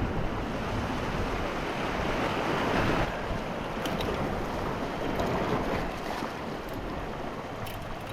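Sea water washing and wind buffeting the microphone, in an even rush of noise that swells and eases twice, with a few faint clicks.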